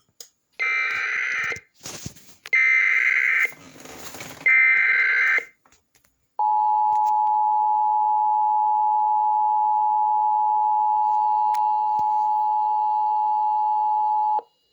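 Emergency Alert System header: three one-second bursts of warbling digital SAME data tones with brief static between them. Then comes the EAS two-tone attention signal, held steady for about eight seconds before cutting off abruptly.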